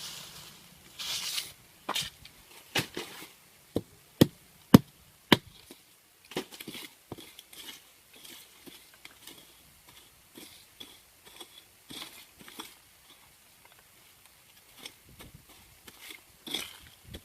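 A series of sharp knocks and taps, like hard objects being struck or set down, the three loudest coming about four to five seconds in, with light scraping and rustling between them.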